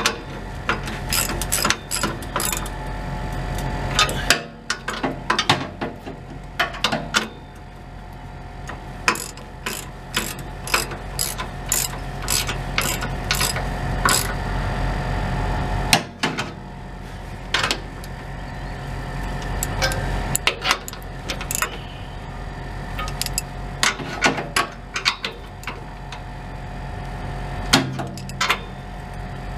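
Ratchet wrench clicking in short runs as exhaust clamp bolts are snugged up, sharp metal clicks coming about two a second at times.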